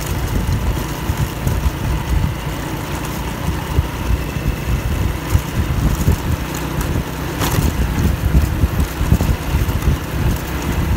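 Wind buffeting the microphone of a moving motorcycle, with a small motorcycle engine running steadily underneath. A single sharp click comes about seven and a half seconds in.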